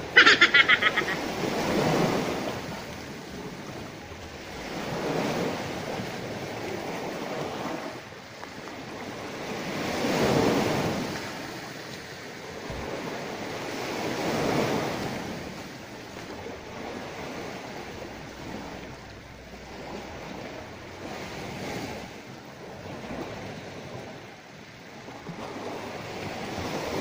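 Sea waves washing in, the noise swelling and fading every few seconds, with wind on the microphone. A short loud burst at the very start.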